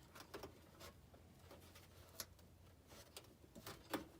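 Faint, scattered light clicks and taps of hands handling furnace parts, about half a dozen spread irregularly with the sharpest near the end, over a low steady hum.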